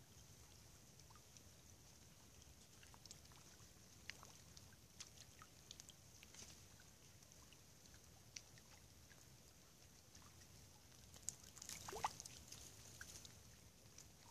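Near silence: faint ambience of a still river in falling snow, with a steady soft hiss and scattered soft ticks, and a brief cluster of clicks with a short falling sound about twelve seconds in.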